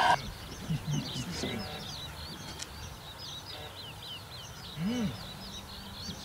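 Birds singing: a continuous stream of short, high chirps and trills. About five seconds in there is a brief low sound that rises and falls.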